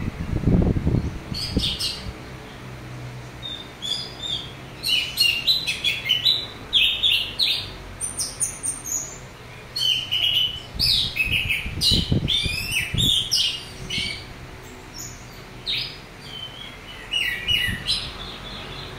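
Caged orange-headed thrush singing loudly in bursts of quick, varied phrases full of rough mimicked notes, with short pauses between bursts. A few low thumps sound about a second in and again around twelve seconds.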